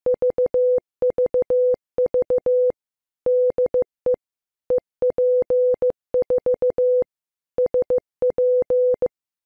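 Morse code sent as a single steady beep tone keyed in dots and dashes, in groups separated by short pauses; it stops a little after nine seconds.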